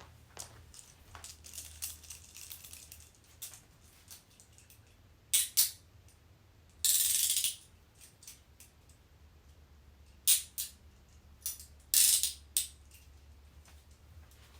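Steel handcuffs being handled: scattered light metal clinks, then a pair of sharp clicks. Near the middle comes a short ratcheting run as a cuff's swinging arm is pushed through its lock, and later a few more sharp clicks.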